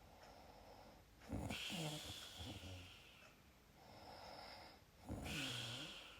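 Snoring: two strong snores with a low, wavering pitch, about a second in and near the end, and a softer breath between them.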